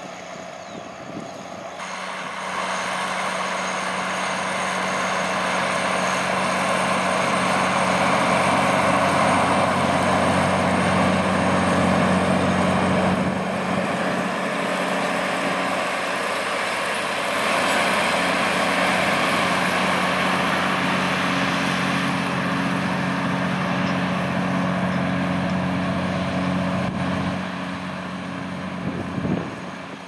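McCormick ZTX 260 tractor engine running steadily under load while pulling a five-furrow reversible plough through the soil, with a low engine hum under a broad rush of noise. It gets louder about two seconds in as the tractor comes close.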